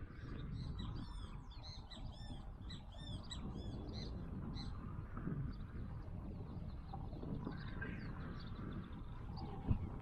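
A bird singing a quick series of short arched chirps for a few seconds, over a steady low rumble, with one sharp knock near the end.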